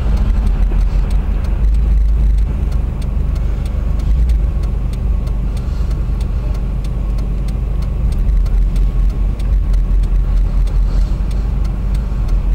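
Steady low rumble of a car's engine and road noise heard from inside the cabin, with faint, evenly spaced ticks over it.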